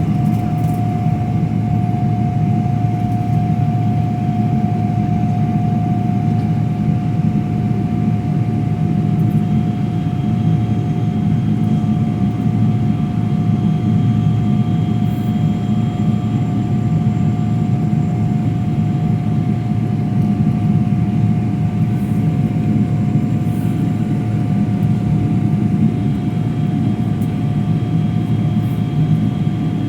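Airliner's jet engines running steadily: a dense low rumble with a steady high whine over it, holding level without rising or falling.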